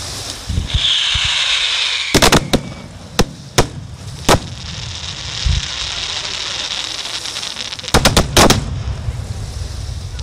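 Aerial fireworks shells bursting. A falling whistle comes in the first second or two. A quick cluster of sharp bangs follows about two seconds in, then single bangs over the next two seconds, and another rapid cluster of bangs near the end.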